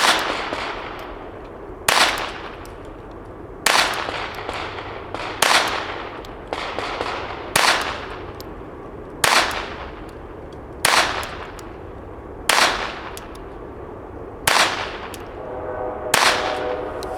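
A Glock 44 pistol in .22 LR fired slowly, ten single shots spaced about one every one and a half to two seconds. Each shot is a sharp crack with a short echo after it.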